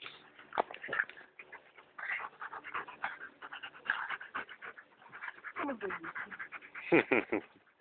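A dog panting rapidly and unevenly during rough play. About two-thirds of the way through comes a falling whimper, and near the end a short, louder pitched vocal sound.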